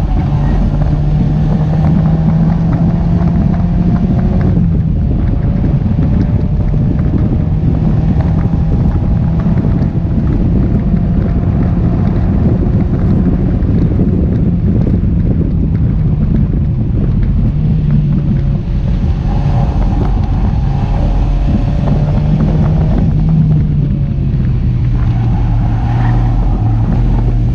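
Mazda MX-5 NC four-cylinder engine, fitted with a ram-air induction kit, pulling hard through the gears with an upshift about four seconds in. Later the revs drop as the car slows under braking. Heavy wind noise from driving with the roof down runs throughout.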